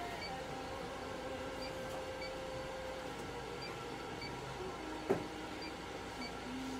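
Steady room hum from clinic equipment with faint high pips repeating about every two-thirds of a second, and a single sharp knock about five seconds in.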